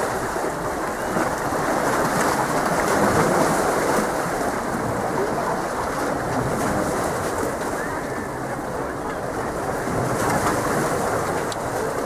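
Sea surf washing steadily against the rocks of a breakwater.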